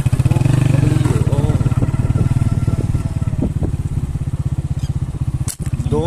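Motorcycle engine running at a steady speed, a rapid even beat of firing pulses, with a brief sharp drop in level about five and a half seconds in.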